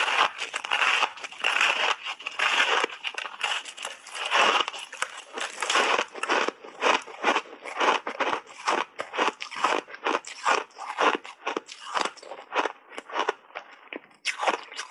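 Crunchy block ice, coated in matcha and milk powder, cracking under a big bite, then chewed in quick crunches several times a second. The sound is close-miked.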